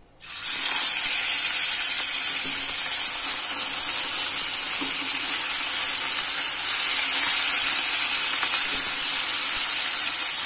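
Catla fish pieces sizzling as they fry in hot oil in a pan. The sizzle starts suddenly as the first piece goes in, then stays loud and steady.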